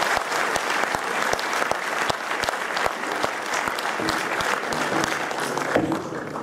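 Theatre audience applauding: dense clapping that gradually thins and dies away near the end.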